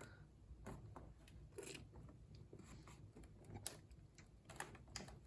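Faint, scattered taps and scrapes of fingers handling a cardboard advent calendar box and picking at one of its pockets.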